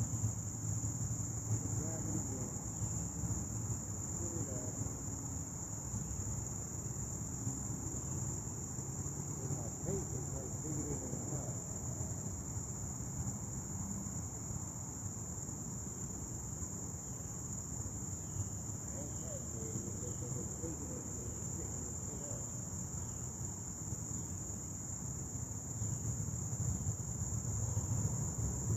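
Chorus of crickets or similar insects: a steady, unbroken high-pitched trill, with a low rumble underneath.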